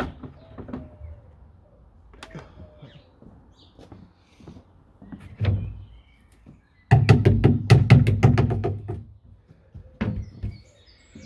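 Hard plastic parts of a Dyson DC04 vacuum knocking and clattering as they are handled and worked loose. A loud rapid run of knocks comes about seven seconds in and lasts around two seconds.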